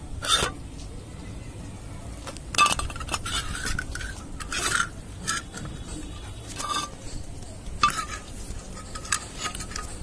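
Metal wire birdcage clinking and rattling in short, irregular bursts as a parrot grips and moves on its bars.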